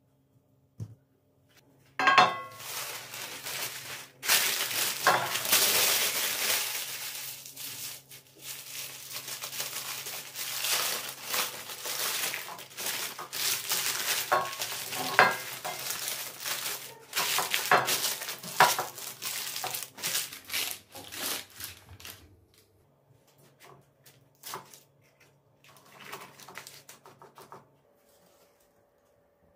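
Dishes and utensils clattering and scraping in a kitchen, with a rustling hiss under many sharp clinks and knocks, one with a short metallic ring about two seconds in. It stops about two-thirds of the way through, leaving only a few faint clicks.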